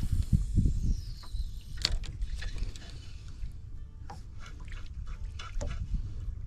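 Wind rumbling on the microphone, with scattered light clicks and knocks from handling gear in a small boat.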